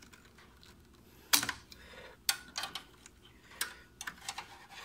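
Metal hook tool and screwdriver clicking and scraping against a motherboard's coin-cell battery holder while prying out the CR2032 CMOS battery. Irregular sharp clicks, the loudest about a second and a half in, with several more after it.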